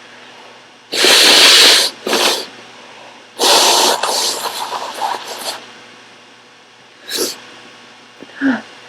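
A woman with a head cold sneezing: a loud burst about a second in, a shorter one right after, and another about three and a half seconds in that trails off. Two short sniffs follow near the end.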